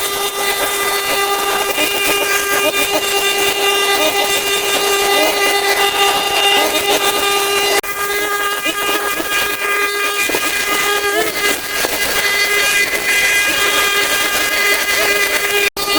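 A steady machine whine with a hiss, holding one pitch. It breaks off sharply a little before halfway and drops out briefly near the end.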